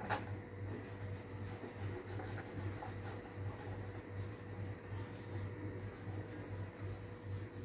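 Fingers rubbing dry seasoning into raw fish fillets on a plastic cutting board: faint, soft rubbing and light scraping, with a sharp click right at the start.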